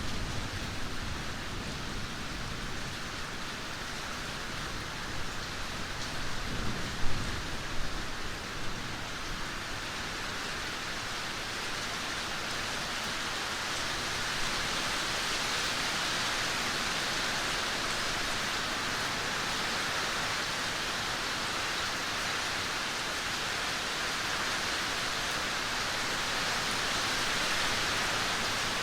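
Heavy rain pouring steadily. A low thunder rumble dies away in the first couple of seconds, and there is a brief louder patch about seven seconds in.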